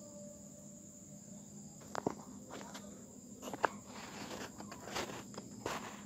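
Faint, scattered clicks and knocks of a plug being pulled from a wall socket and handled, the loudest about three and a half seconds in, over a faint steady hum.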